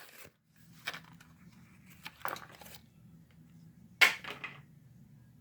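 Plastic blister packaging and card backing crinkling and tearing in a few short bursts as a diecast toy car is opened; the sharpest, loudest tear comes about four seconds in.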